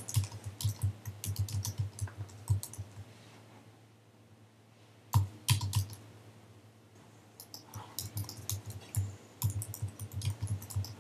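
Computer keyboard typing in quick runs of keystrokes, with a pause of about two seconds and two louder clicks about halfway through, then more typing.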